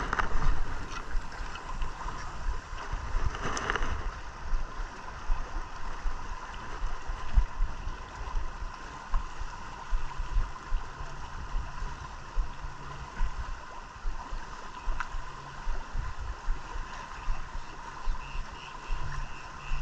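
Wind buffeting the microphone and choppy water slapping against a boat's hull, with a faint steady hum underneath.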